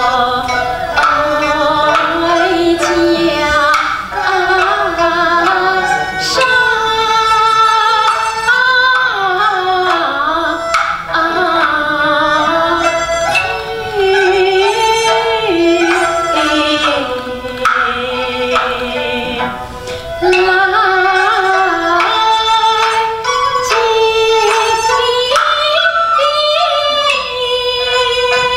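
Kunqu opera music: a female voice sings a slow, ornamented melody with instrumental accompaniment, marked by sharp percussion strokes now and then.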